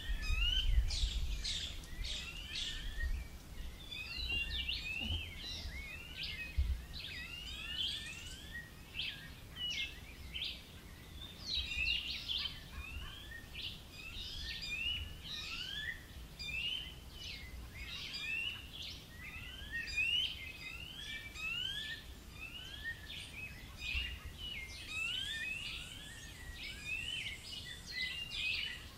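Songbirds chirping and whistling: many short, rising notes repeated constantly, several calls overlapping. A low rumble is loudest in the first couple of seconds.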